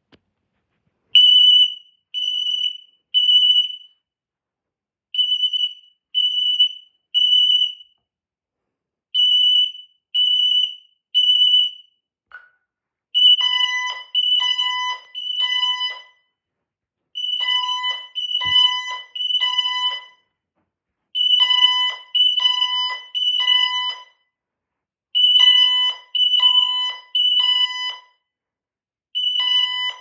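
Security alarm keypad sounding a fire alarm in the temporal-three pattern: three high beeps, a pause, repeating. About 13 seconds in, a second, lower-pitched alarm sounder joins in the same three-beep rhythm as another panel goes into fire alarm.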